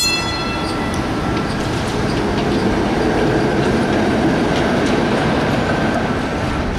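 PCC streetcar rolling past, with the steady rumble of steel wheels on the rails. A brief high ringing tone sounds right at the start, and a thin high wheel squeal comes later on.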